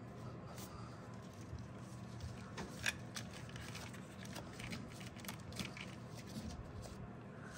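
Gloved hands handling wiring and a plastic connector in an engine bay: faint rustling with scattered light clicks, one sharper click about three seconds in, over a faint steady low hum.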